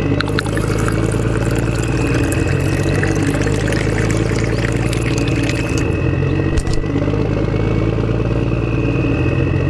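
A motor running steadily with a faint high whine, without letting up.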